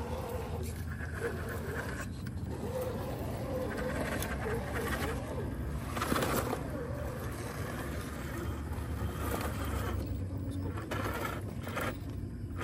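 1/10-scale RC rock crawlers working over dirt and loose rock: tyres scrabbling and scraping, louder about six seconds in, over a steady low hum.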